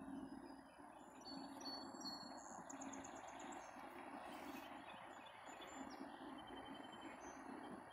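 Faint outdoor ambience: birds chirping, with one quick trill of repeated notes about two and a half seconds in, over a steady low hum.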